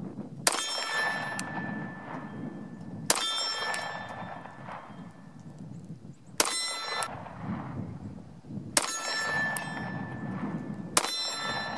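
Five pistol shots a few seconds apart, each followed by a clanging metallic ring of a steel target being hit, fading within about a second.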